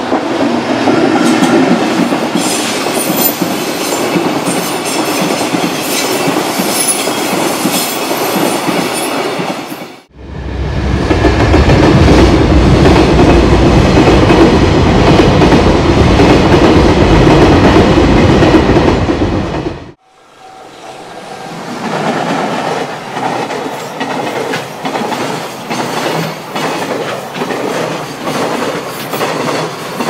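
Container freight trains hauled by EF210 electric locomotives rolling past level crossings, with a steady rumble and clatter of wagon wheels over the rail joints. The sound cuts off abruptly twice, about 10 and 20 seconds in. The middle stretch is the loudest and deepest, and the last stretch has a regular clickety-clack beat.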